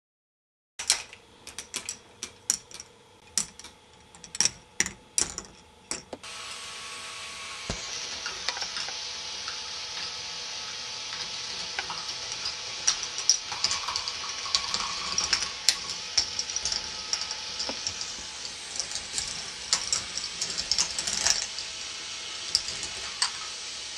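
K'nex ball machine running: balls clicking and clattering through plastic track and lifts. It opens with a run of sharp separate clicks, then about six seconds in a steady high hiss sets in, with clicks and clatters going on over it.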